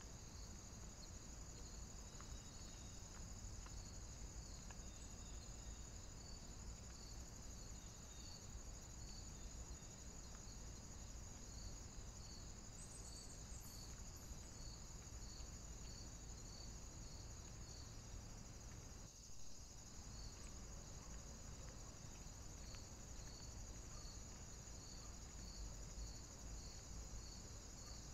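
Faint insects, likely crickets, with a steady high trill and a regular chirp about once a second, over low background hiss.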